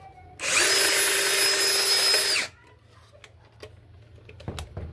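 Electric drill run in a single burst of about two seconds, with a steady whine that starts and cuts off sharply. The drill stands in for the burnt blender's motor, spinning the blender.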